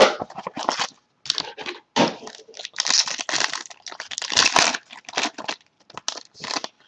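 A sealed football trading card hobby box being torn open, its plastic wrap and packaging crinkling and tearing in a string of irregular rustling bursts.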